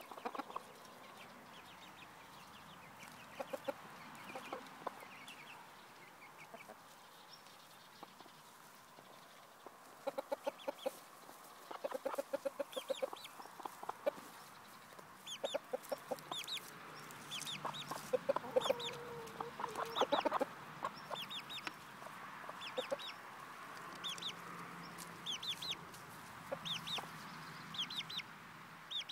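Hens clucking in short runs of quick, low clucks. Through the second half, short high chirps that slide downward repeat over and over.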